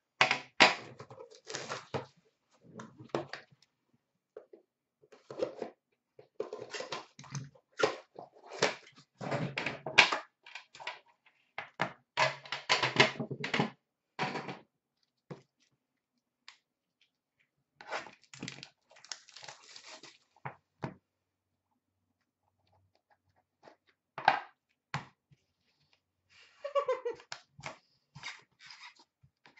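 Hands handling a hockey card tin and its packaging: irregular rustling, taps and clunks in clusters, with quiet pauses between. A brief falling squeak comes near the end.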